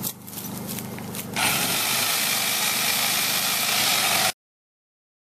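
Vehicle engine idling with a steady low hum, then a loud steady hiss takes over about a second and a half in and cuts off suddenly near the end.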